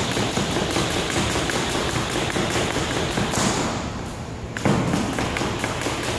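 A speed jump rope ticking rapidly and evenly against a wooden floor, mixed with the taps of the jumper's feet in alternating-foot speed steps. The sound dips about three and a half seconds in and comes back suddenly a second later.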